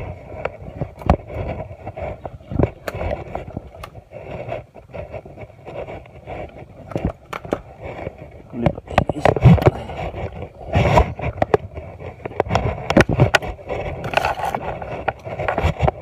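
Footsteps and rustling over dry leaf litter and sandy ground, with irregular knocks and thumps from a handheld camera being carried.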